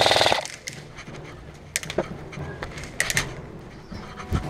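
Airsoft gun firing a rapid full-auto burst that stops a moment in, followed by scattered single sharp clicks and cracks.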